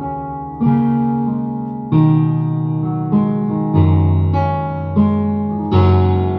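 Digital keyboard playing slow chords with deep bass notes. A new chord is struck about every half second to second and a half, and each one rings and fades.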